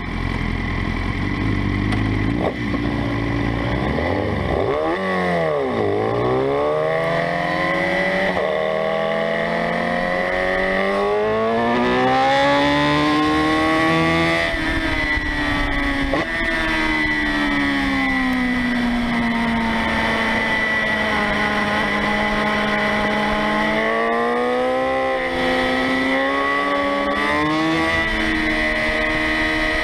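Sport motorcycle engine being ridden hard, its pitch climbing as it accelerates, dropping away as it backs off and swinging up and down again through the bends. A steady high whine runs underneath.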